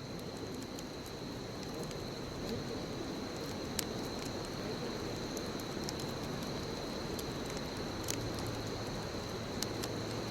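Bonfire burning with a steady soft hiss and a few sharp crackling pops of the wood. A thin, steady high tone runs underneath.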